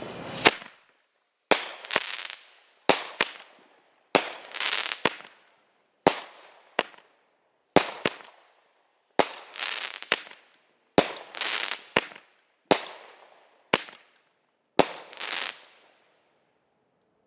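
Red Apple 'Double Dragon' 200-gram firework cake going off: the fuse hiss ends about half a second in, then roughly nine shots fire one after another, about every one to one and a half seconds, each a sharp launch report followed by the bang and crackle of its break in the air. The last shot goes off about 15 seconds in.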